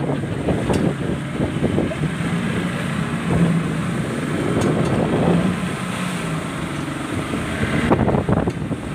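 Speedboat engine running steadily at sea, with wind buffeting the microphone and water splashing around the boat.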